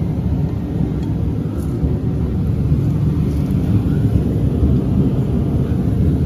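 A steady low rumble, like a machine running, that holds even with no pitch and no knocks.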